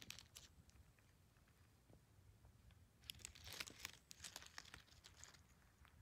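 Near silence with faint crackling and rustling of dry fallen leaves: a short spell at the start and a denser one lasting about two seconds from about three seconds in.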